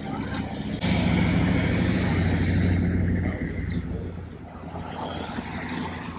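A motor vehicle's engine running close by: a steady low hum that rises suddenly about a second in and eases back after about three seconds.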